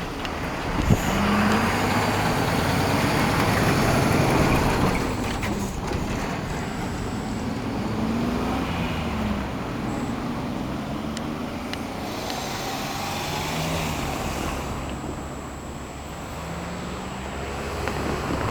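Road traffic: cars and trucks passing close by. Their engines rise and fall in pitch over a steady rush of tyre noise, loudest in the first few seconds.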